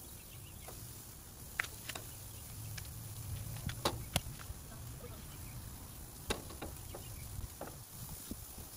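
Raw steaks being laid on the grates of a hot gas grill and seasoned: a few sharp clicks and taps, the clearest around 4 and 6 seconds in, over a low steady rumble.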